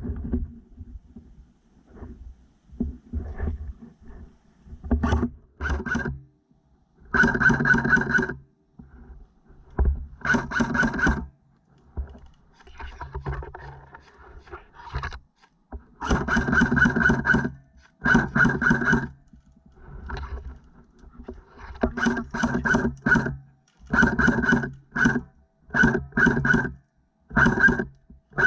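Airsoft rifle firing repeated full-auto bursts, about eight of them, each a second or so of rapid clicking over a steady mechanical whine.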